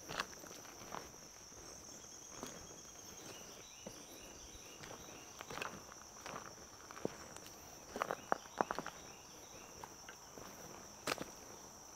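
Footsteps walking at an uneven pace, with a louder run of steps about eight seconds in and one sharp step near the end, over a steady high-pitched insect drone.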